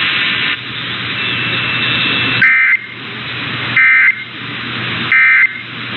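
Three short bursts of Emergency Alert System End-of-Message data tones, the warbling digital squawk that closes an EAS test, about 1.4 s apart from about two and a half seconds in, received over a radio with a steady hiss of static between them.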